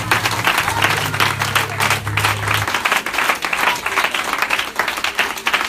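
A congregation applauding, a dense patter of hand claps. Under it a low bass note is held from the band's instrument and stops about two and a half seconds in.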